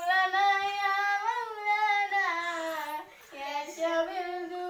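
A child singing unaccompanied: two long held phrases with a slight waver in the pitch and a short break about three seconds in.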